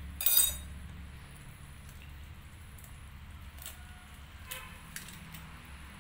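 Hen's eggshell cracking over a pan of simmering curry: a few sharp taps and cracks between about three and a half and five seconds in, over a steady low hiss. A brief louder rustling noise comes just after the start.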